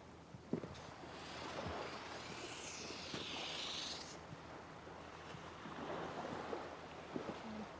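A wooden stick scraping and dragging through damp sand as letters are drawn, with a few soft knocks of rubber-booted steps, over a steady background hiss. A louder scraping swish comes about two and a half seconds in and lasts about a second and a half.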